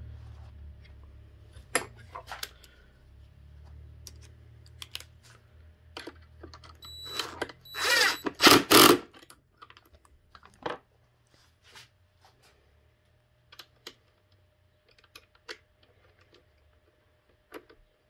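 Light metallic clicks and clinks of small bolts and rod ends being handled and fitted back onto a skateboard truck's radius rods, with one louder burst of tool noise lasting about a second and a half, about eight seconds in.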